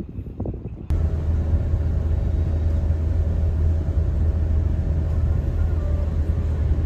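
Steady low rumble of a moving car, cutting in suddenly about a second in and running evenly after that.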